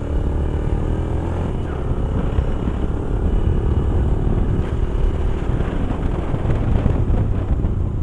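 Motorcycle engine running steadily as the bike is ridden slowly over a rough gravel track.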